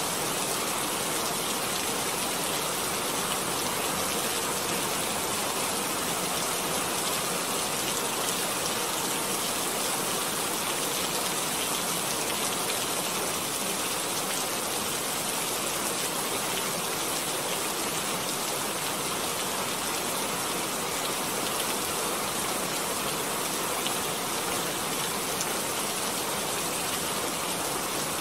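Steady, even hiss-like rushing noise with no distinct events, tones or rhythm.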